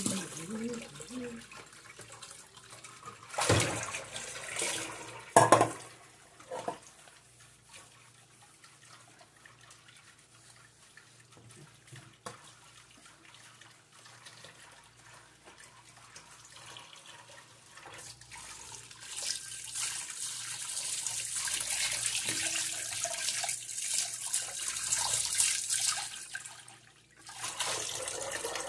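Washing up at a stainless steel sink: a few knocks of pots and utensils in the first seconds, a quiet stretch, then the tap running steadily onto a steel pot for about eight seconds before it stops.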